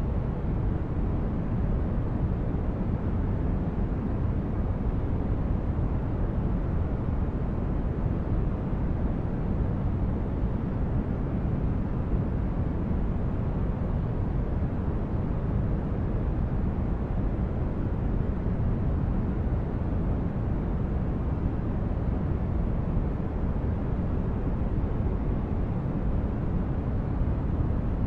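Steady sleep-aid noise, deep and even, weighted heavily toward low pitches like brown noise rather than bright hiss, with no changes.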